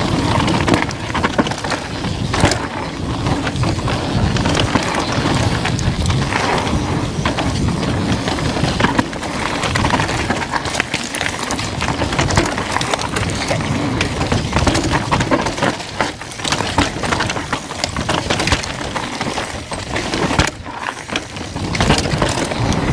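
Downhill mountain bike descending a rough trail: tyre roar and crunching over the ground, with the chain and frame rattling and clattering over bumps and wind buffeting the action-camera microphone.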